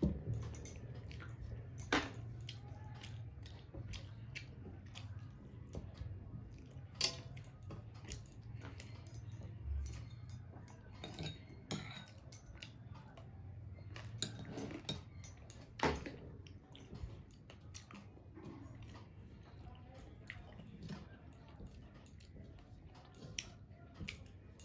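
Eating by hand from a steel plate: scattered soft clicks and scrapes of fingers and a spoon on the steel plate and a glass bowl, with chewing, and a few sharper clinks. A low steady hum runs underneath.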